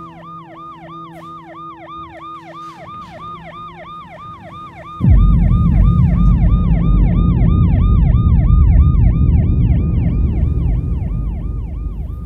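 Ambulance siren in fast yelp mode, its pitch sweeping up and down about four times a second. A loud low rumble comes in suddenly about five seconds in and carries on under it.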